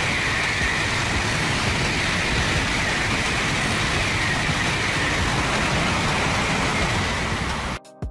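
Shinkansen bullet train passing a station platform at high speed: a steady, loud rushing noise that cuts off suddenly near the end.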